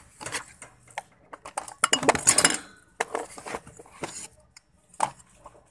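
Metal wire shopping cart rattling and clinking as it is handled, with loose clicks throughout, a dense run of clatter about two seconds in and a single sharp clink near the end.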